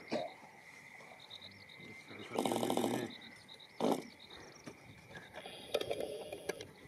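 Model-aircraft glow engine coughing briefly during a start attempt: a rapid run of firing pulses lasting under a second about two and a half seconds in, then a single short pop near four seconds, without catching.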